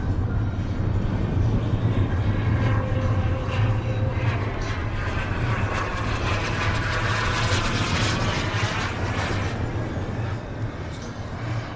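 Turbine engines of a large radio-controlled MD-11 airliner model passing overhead: a rushing whine that swells to its loudest about seven to eight seconds in, then fades.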